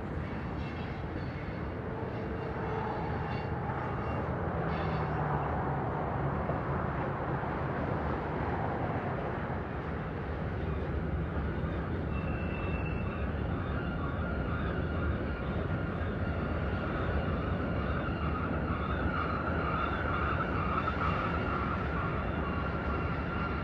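Freight train cars rolling past with a steady rumble of wheels on rail. A steady high whine joins in about halfway through.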